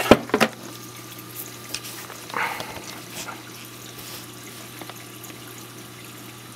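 Running water of a reef aquarium's circulation and sump, splashing and trickling over a steady low hum, with a few brief knocks in the first half second.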